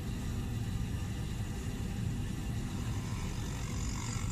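Electric sole-grooving machine running with a steady low hum as the edge of a double leather sole is fed against it to cut the stitch channel.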